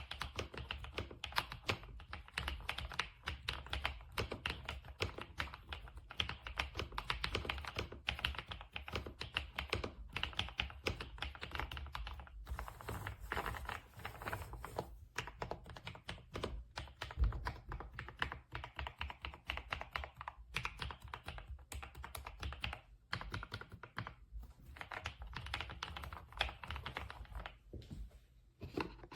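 Typing on a Kisnt gasket-mounted mechanical keyboard with linear switches: a fast, continuous stream of keystrokes with a few short pauses.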